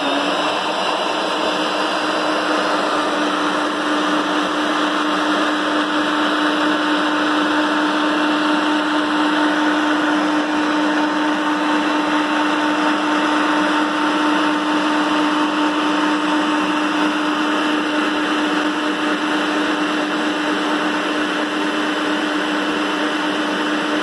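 Cadence Colors orbital stand mixer running steadily at a high speed, whipping a batch of powdered ice cream mix under its splash guard: an even, a little noisy motor hum with a steady pitch.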